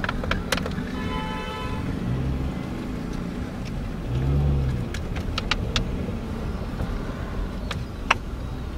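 Car engine running at low speed, heard from inside the cabin as the car rolls slowly forward, with a brief pitched tone about a second in and a few sharp clicks around the middle and near the end.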